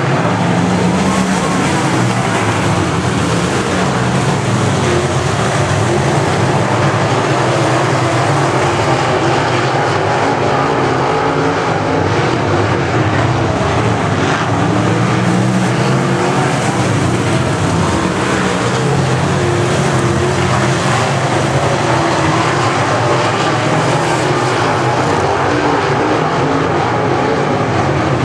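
A field of dirt late model race cars with steel-block V8 engines running at racing speed. It is a loud, continuous engine drone whose pitch drifts up and down as the cars go around the oval.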